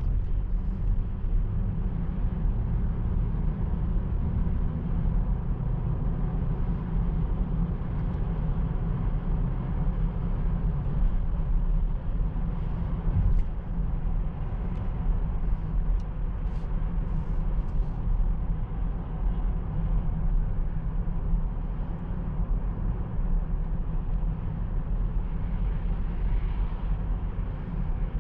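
Cabin noise of a Mercedes EQE SUV 350 4Matic electric SUV cruising at city speeds: a steady low road and tyre rumble with no engine sound, and a few faint ticks about halfway through.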